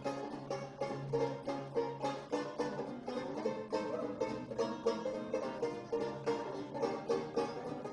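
Small traditional jazz combo playing an up-tempo number, with strummed plucked strings (guitar or banjo) keeping a fast, even beat under the horns.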